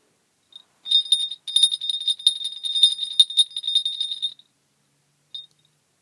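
A small six-petal crotal (sleigh) bell, about an inch across, shaken by hand and jingling for about three and a half seconds, with a brief break near the start. Rapid rattling strikes run over a steady high ringing tone. The bell still jingles, its pellet loose inside.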